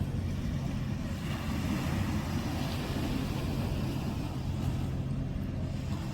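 Steady low rumble of wind buffeting a phone's microphone at the beach, with surf noise under it.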